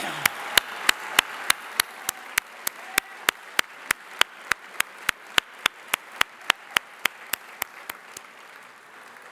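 Audience applause fading away, with one person's claps close to the podium microphone, sharp and even at about three a second, stopping shortly before the end.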